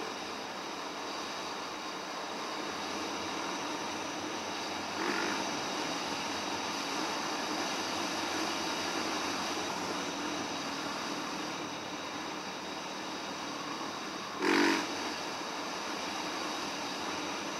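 Yamaha WR450F single-cylinder four-stroke dirt bike running on a trail ride, heard as a steady noisy rush. It has a short louder burst about five seconds in and a stronger one a few seconds before the end.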